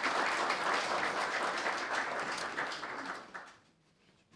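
Audience applauding, dying away about three and a half seconds in.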